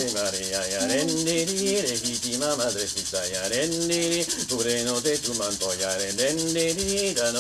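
A man's voice singing an icaro, a slow, gliding chant melody of held notes, over a rattle shaken in a fast, steady rhythm.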